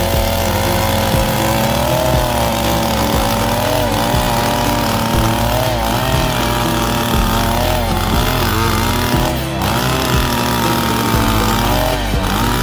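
Okasu wheeled push-type earth auger's small petrol engine running under load as the spiral bit bores into soil. Its pitch dips and recovers several times as the bit bites.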